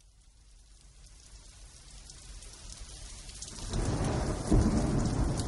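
Steady rain fading in and growing louder, with a rumble of thunder breaking in about four seconds in.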